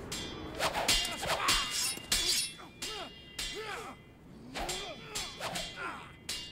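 Fight sound effects: a rapid run of blows and crashes with things shattering, mixed with short rising-and-falling cries.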